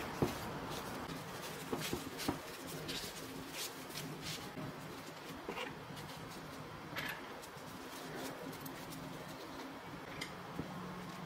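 Quiet handling sounds: a paper towel rustling as it is rolled and held, with scattered light clicks as thin chopsticks are laid against it.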